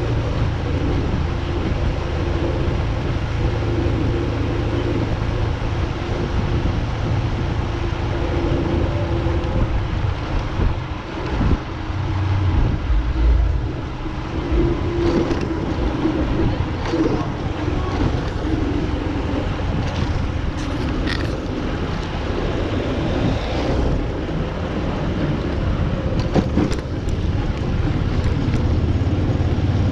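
Steady low rumble of a vehicle on the move, with wind buffeting the microphone and a few short clicks and knocks in the second half.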